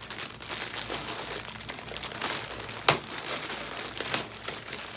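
Plastic packaging crinkling and rustling as it is handled, with one sharp click about three seconds in.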